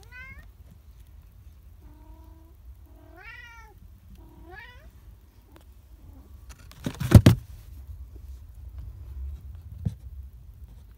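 Cat meowing: four short calls, most of them rising in pitch, in the first five seconds. About seven seconds in comes a loud knock, the loudest sound here, with a small click near the end.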